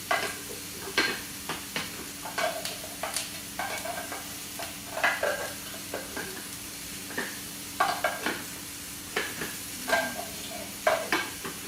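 Turkey meatballs sizzling in hot olive oil in a frying pan, with a steady hiss under many irregular clicks and clatters of utensils or plastic parts. A steady low hum runs underneath.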